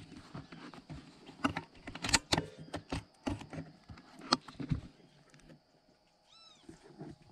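Irregular clicks and knocks of handling noise as the scoped rifle with the camera on it is shifted and re-aimed, loudest about two seconds in and again just past four seconds. Near the end comes one short bird call.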